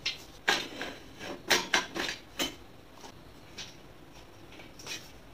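Metal slotted-angle shelf bars clanking together as they are handled and sorted: about six sharp metallic knocks in the first two and a half seconds, then a couple of fainter ones.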